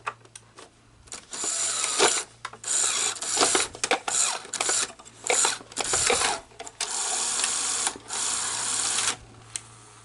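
Sony SL-HF600 Betamax VCR's tape loading mechanism running: its motor and gears whir in several bursts with clicks between them, stopping about nine seconds in.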